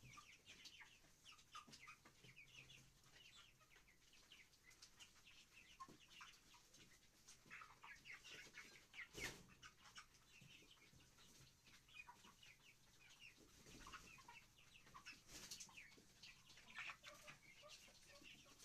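Faint, frequent short chirps and clucks from chickens, with one sharp knock about halfway through.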